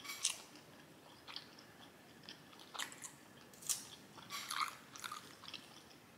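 A person chewing food close to the microphone: irregular wet mouth smacks and small crunches.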